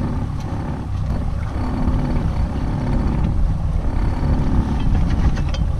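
Steady low rumble of wind buffeting the microphone over a boat's outboard motor running, with a spinning reel cranked in short spurts during a fight with a hooked fish; a few sharp clicks near the end.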